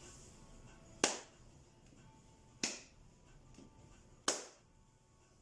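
Three sharp body-percussion strikes, evenly spaced about a second and a half apart, performed as a slow rhythmic sequence.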